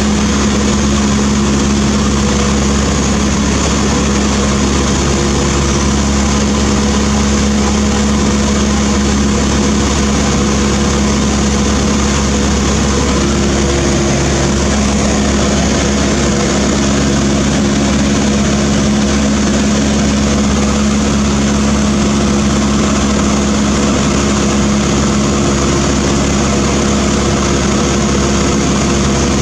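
Cessna 152's four-cylinder Lycoming engine and propeller running steadily at cruise power, heard from inside the cabin, with a steady rush of air over the airframe.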